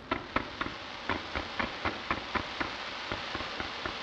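Fireworks salvo: a rapid fan-shaped volley of ground-fired shots, about four a second in an even rhythm, over a continuous hiss of burning stars.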